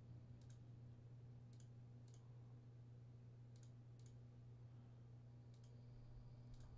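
Faint computer mouse clicks, about seven scattered through the span, each a quick double tick, over a low steady hum.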